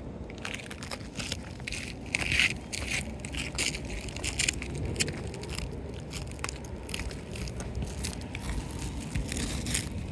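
Irregular gritty crunching and scraping on asphalt roof shingles, a quick string of short scratchy contacts. It fits shingles being handled and marked with chalk.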